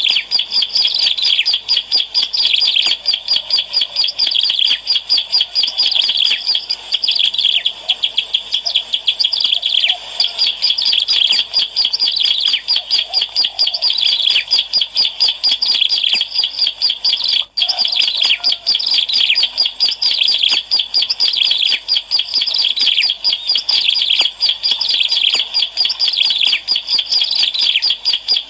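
Ciblek alang-alang (a prinia) singing busily in a lure recording: a continuous stream of rapid, high chirping notes, with one brief break about two-thirds of the way through.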